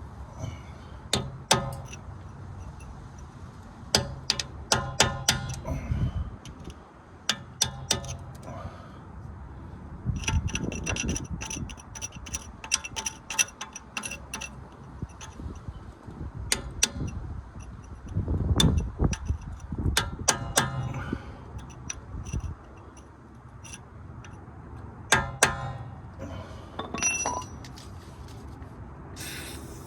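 Metal tools clinking and knocking against metal during work on a rusted driveshaft nut: repeated sharp clinks that ring briefly, in clusters, with some duller knocks.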